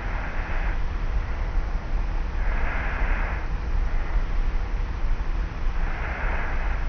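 A person sleeping on their back, breathing slowly with slight snoring: three soft breaths about three seconds apart. Under them runs the steady low hum and hiss of an old tape-recorder recording.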